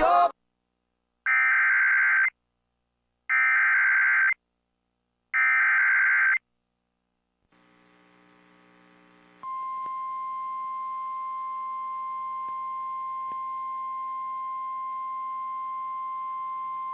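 Emergency Alert System broadcast: three digital SAME header data bursts, each about a second long and a second apart, announcing the next alert. A few seconds later, over faint radio hiss, the single steady attention tone of a weather-radio warning alarm begins and holds.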